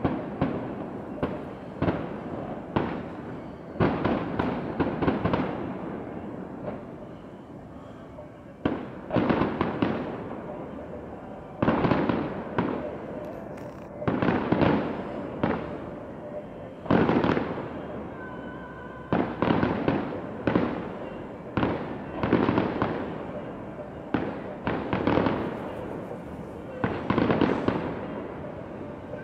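Aerial fireworks shells bursting in a continuing series, with sharp bangs every one to three seconds, each trailing off in a rumbling echo.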